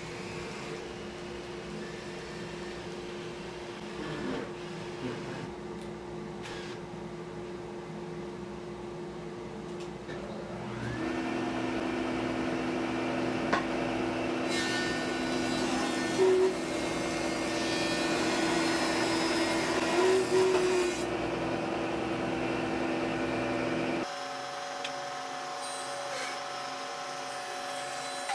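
Steady machine hum, then a thickness planer running louder from about eleven seconds in, with its cutterhead planing a board for several seconds. Near the end the sound drops abruptly to a quieter, higher-pitched hum.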